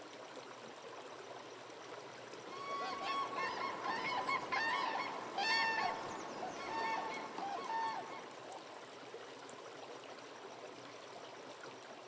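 Water trickling steadily in a small stream, with several birds calling repeatedly from about two and a half seconds in until about eight seconds in.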